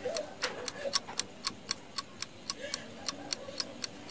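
Clock ticking steadily, about four ticks a second.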